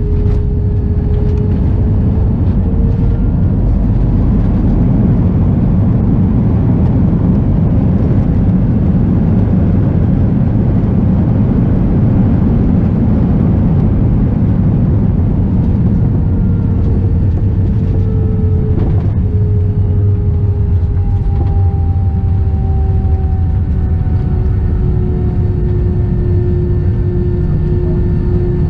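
Cabin noise of an Airbus A321-211 just after landing: a loud, steady rumble of its CFM56 engines and the rolling aircraft, heaviest in the first half. Through the second half a faint engine tone slowly falls in pitch as the engines wind down.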